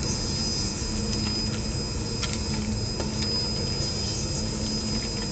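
Techik IMC-230L checkweigher running: a steady mechanical hum with a thin high whine, and a few faint clicks as a pack crosses the weighing conveyor.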